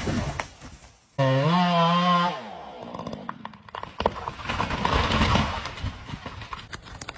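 Chainsaw running. It holds a steady, slightly wavering engine note, then its pitch drops away as the throttle comes off. For the last few seconds there is rougher cutting noise with sharp cracks.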